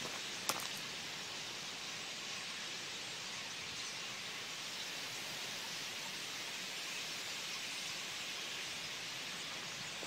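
Steady hissing din of a huge flock of black birds flying overhead, with a sharp click about half a second in.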